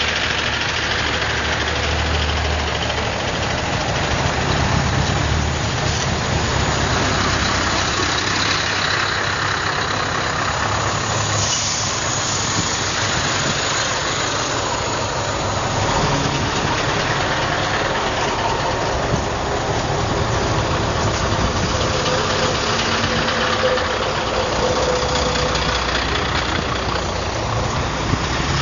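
Engines of a column of heavy trucks running as they drive slowly along, a steady rumble with no sharp events.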